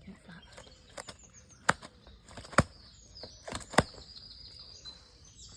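A few sharp slaps or knocks at irregular intervals over faint birdsong.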